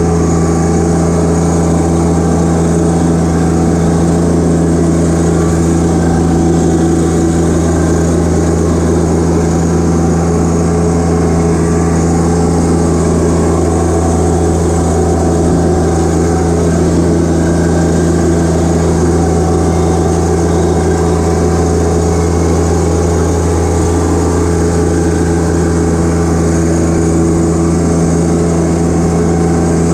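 John Deere 1025R compact tractor's three-cylinder diesel engine running at a steady speed, heard up close from the operator's seat.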